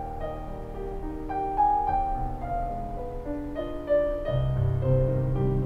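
Slow, gentle piano music with long held notes, a soundtrack-style score. A deeper bass note comes in about four seconds in.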